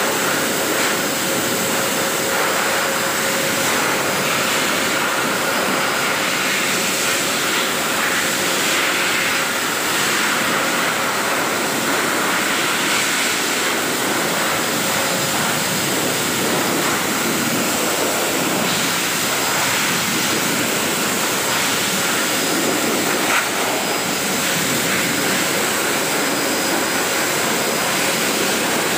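Pet grooming dryer blowing steadily: a loud, even rush of air with a faint motor whine.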